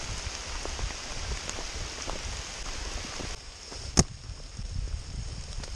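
Rain pattering in the forest and on the hikers' rain ponchos, with footsteps and rustling on the leaf-covered trail. About four seconds in comes a single sharp knock, as a leafy branch brushes against the camera.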